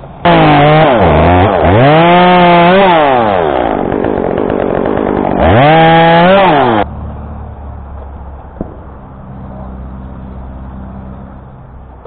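Two-stroke chainsaw revving hard, its engine pitch dropping and climbing back several times, then cutting off abruptly about seven seconds in.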